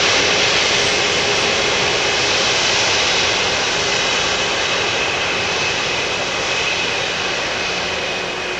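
Boeing 777 jet engines running as the airliner rolls down the runway: a steady rushing noise with a faint high whine, slowly fading.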